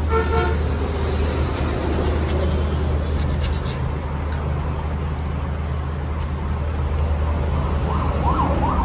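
Steady rumble of road traffic, with a few short scrapes of sandpaper on a metal part around the middle. Near the end a siren starts wailing, rising and falling in pitch.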